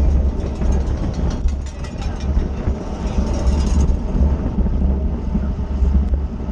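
Wind buffeting a bicycle-mounted camera's microphone at racing speed: a heavy, uneven low rumble.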